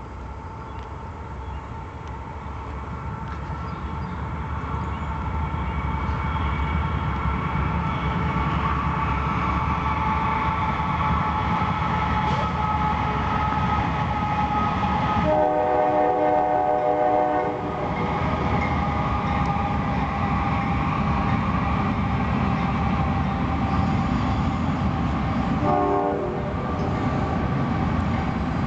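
Train passing, its rumble growing louder over the first several seconds and then holding steady, with steady high-pitched tones over it. The train horn sounds once for about two seconds about halfway through and gives a short toot near the end.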